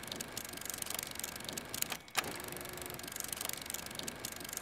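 A fast, even mechanical clatter of small ticks, with a brief break about two seconds in.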